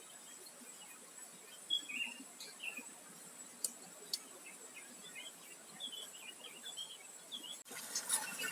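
Faint, scattered outdoor bird chirps over a steady thin high-pitched whine. About three-quarters of the way in, a crackly scratching noise with many small clicks starts.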